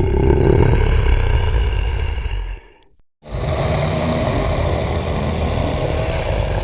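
Dragon growl sound effects: two long, deep, rasping growls, the first about two and a half seconds long, the second about four seconds long, with a short pause between.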